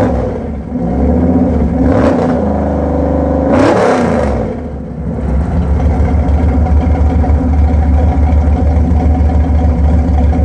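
Small-block Chevy 350 V8 with a small Lunati cam idling through 2.5-inch Spintech Pro Street 6000 mufflers dumped in front of the rear tires. It is revved twice, about two and four seconds in, the second rev the biggest, and falls back to a steady idle.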